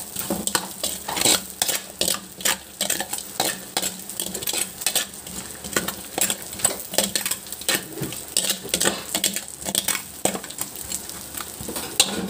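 Spatula scraping and clacking against a wok as chopped red onions are stir-fried, a few strokes a second, over a steady sizzle of the oil.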